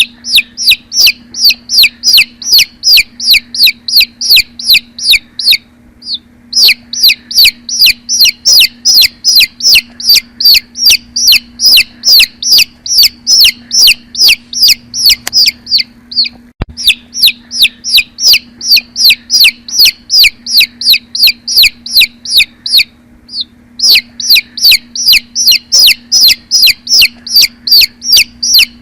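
Baby chick peeping: a rapid run of loud, high, downward-sliding peeps, about three or four a second, broken by short pauses three times.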